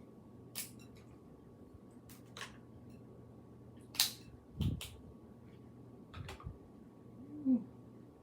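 Close-up eating sounds: chewing and mouth smacks with scattered sharp clicks and a few soft thumps, and a short hum near the end.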